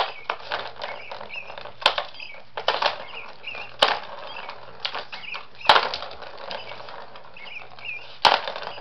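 A kitten batting and pouncing at a plastic ball-track cat toy: irregular sharp clicks and knocks, a few seconds apart, with short rattling runs between them.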